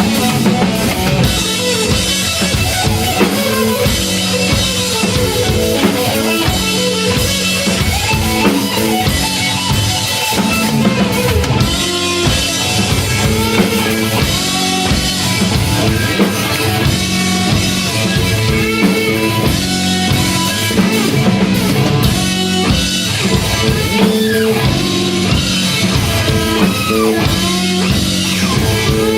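Rock band playing live: guitar over a drum kit keeping a steady beat.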